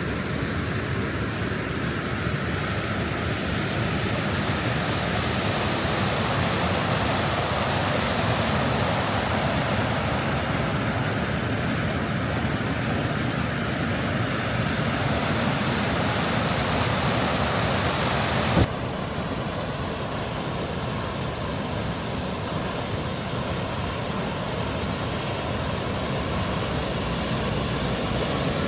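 Water rushing steadily over a dam spillway, a constant even rush of noise. About two-thirds of the way in it cuts off abruptly with a click and resumes slightly duller.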